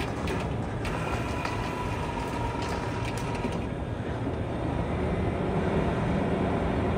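Engine of a high-centered off-road SUV running under load as it tries to drive off the rock, its wheels spinning. It gets louder from about five seconds in.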